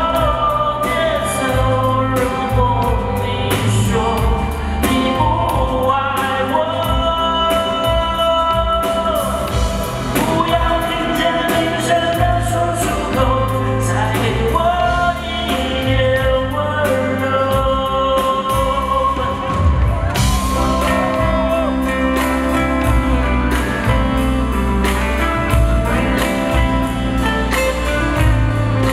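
A man singing a slow pop ballad live into a handheld microphone, backed by a live band of drums, keyboards and bass guitar, in a large indoor arena.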